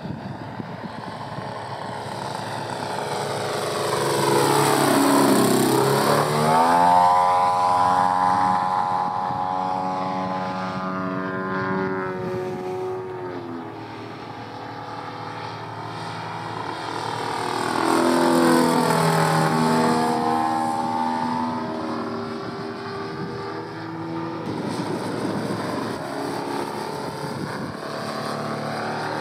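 Two-stroke petrol ZDZ engine and propeller of a 2.2 m radio-controlled Pitts biplane running at flying speed. It makes two loud passes, about a fifth of the way in and again past halfway, its pitch falling as it goes by.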